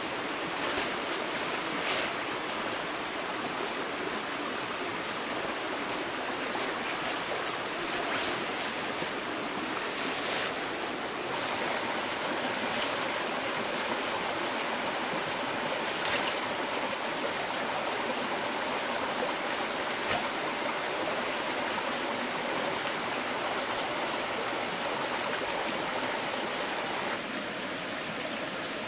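Small stream flowing steadily over rocks, an even rushing of water, with a few scattered sharp clicks over it.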